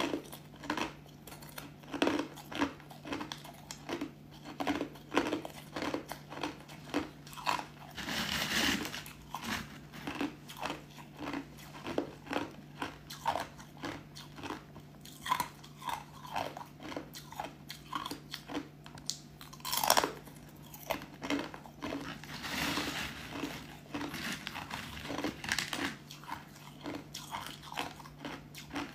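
Thin, crisp flakes of white ice being bitten and chewed in the mouth, giving a steady run of short crunches at about two a second. There is a longer, louder stretch of crunching about a third of the way in and again about three-quarters through.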